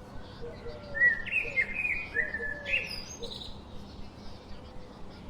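Birds chirping: a run of loud, high chirps between about one and three seconds in, over short, lower calls that repeat throughout.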